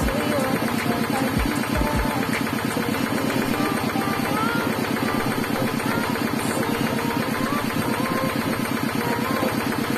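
Coconut half scraped hard and fast against the serrated blade of a bench coconut grater: a steady, rapid rasping rhythm that sounds like a kuliglig hand-tractor engine running.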